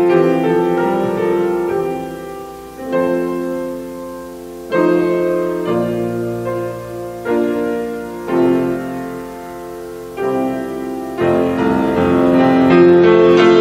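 Solo grand piano playing slow chords, each struck and left to ring and fade before the next, about one every one to two seconds, growing fuller and louder near the end.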